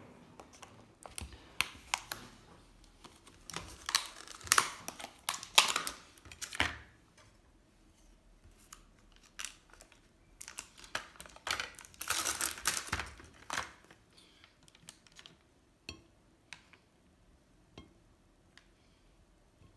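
Thin plastic olive tray crinkling and crackling as it is handled and opened, with light clicks of a fork against the plastic. The handling comes in two busy spells, then only a few scattered ticks.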